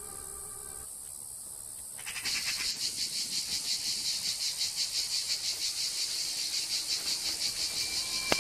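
Insects chirping in a high, fast, evenly pulsing trill that sets in about two seconds in, over a faint steady hiss.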